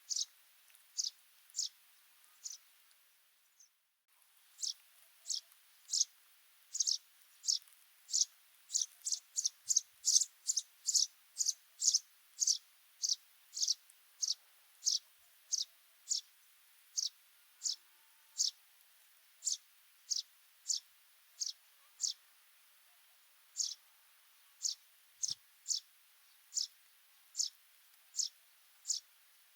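Sudan golden sparrow calling: a long series of short, high chirps repeated about one or two a second, coming faster and louder around the middle, with a brief pause about four seconds in.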